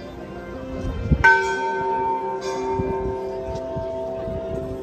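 A temple bell struck once about a second in, then ringing on with a steady, lingering tone.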